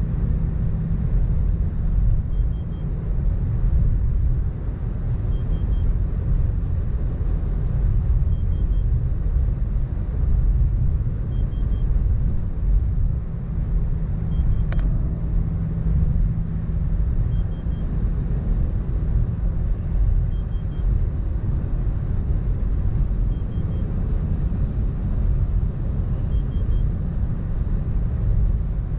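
Inside the cabin of a 2018 Mitsubishi Pajero Sport driving fast on a highway: a steady low rumble of tyres, wind and engine drone. A faint soft tick repeats about every three seconds, and one sharp click comes about halfway through.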